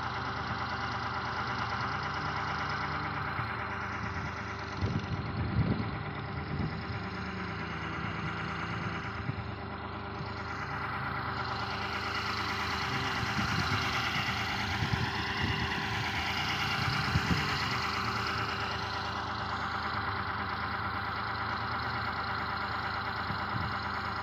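An engine running steadily at one constant speed, like a motor at idle, with a few low thumps on the microphone about five seconds in and again around fifteen seconds.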